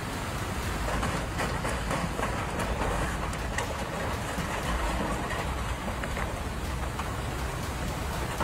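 Glacial river in full flood, its water rushing steadily, with heavy rain and wind gusting on the microphone that add a deep rumble.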